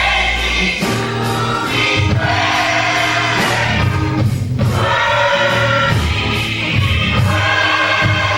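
Gospel choir singing with a full band, steady bass and a regular beat.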